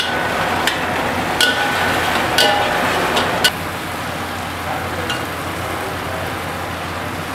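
Sauced chicken sizzling in a steel wok while a metal spatula scrapes and strikes the pan, giving several short ringing clangs in the first three and a half seconds, then steady sizzling.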